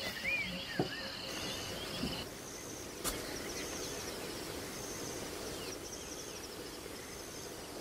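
Faint outdoor ambience with bird calls: a couple of rising-and-falling whistled calls in the first second, then a short high chirp repeating about once a second. There is one sharp click about three seconds in.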